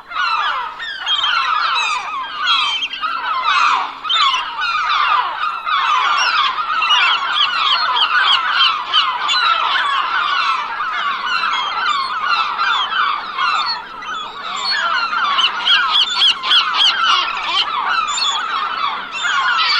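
A flock of seagulls calling continuously, many overlapping short cries.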